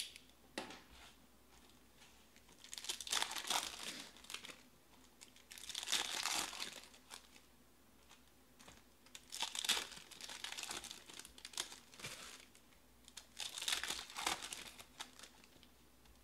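Foil trading-card pack wrappers crinkling as the packs are torn open, in four bursts a few seconds apart.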